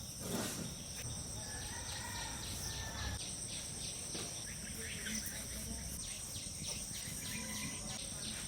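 Insects trilling steadily, a continuous high-pitched two-tone chirring, with faint scattered ticks.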